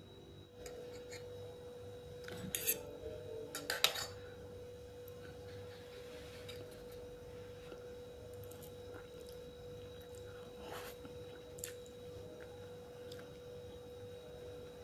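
Faint sounds of a person eating noodles: a metal fork clicking against a plate, in a cluster about three seconds in and a few single clicks later, over a steady high-pitched hum.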